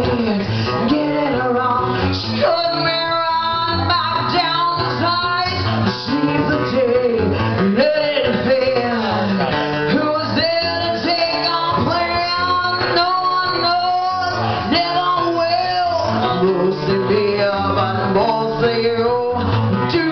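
Live band playing a country-style song: strummed acoustic guitar with a lead vocal sung over it.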